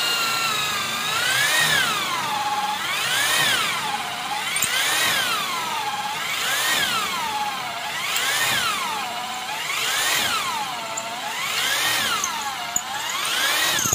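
Buildskill 10 mm corded electric drill boring into a wooden log. Its motor whine runs continuously and swings up and down in pitch about every second and a half.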